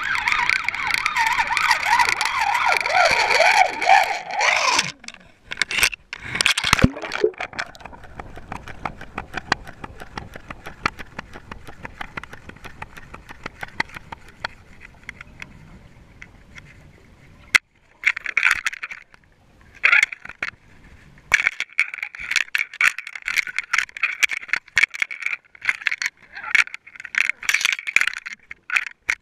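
Underwater noise picked up by a GoPro in its waterproof housing. For the first five seconds there is a warbling, wavering sound. It then goes quieter apart from a few sharp knocks. From a little past halfway, irregular rattling and scraping clicks follow.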